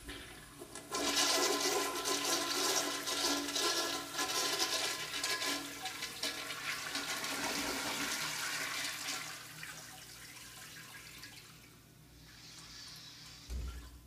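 American Standard Cadet toilet flushing on an automatic flushometer: water rushes loudly through the bowl from about a second in, then tapers off over the last few seconds as the flush ends. A short low thump comes near the end.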